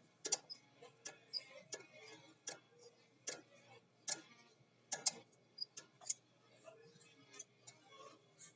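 Irregular metallic clicks and taps of brake pads, retaining clips and shims being fitted into a VW Kombi's front disc-brake caliper, some knocks much louder than others.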